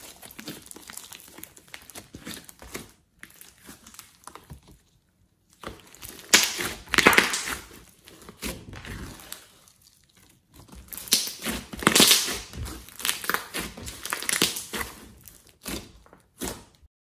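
Hands squishing, pressing and stretching glossy clay slime, making sticky squelches and irregular crackling pops, louder in two stretches and cutting off abruptly just before the end.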